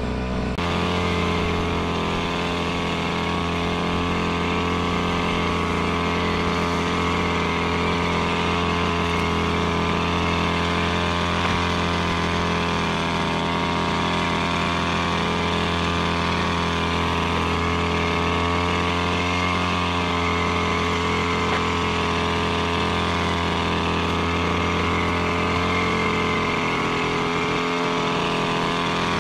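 The small engine of a KOSHIN EP-10P engine power sprayer running at a steady speed while spraying.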